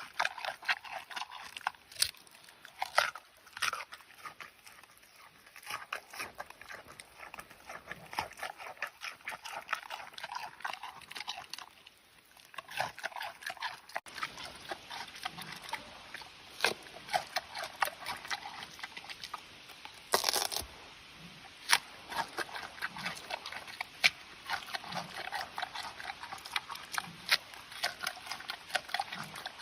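Giant panda chewing pumpkin: a steady, irregular run of wet crunches and smacks, with one louder crunchy burst about twenty seconds in.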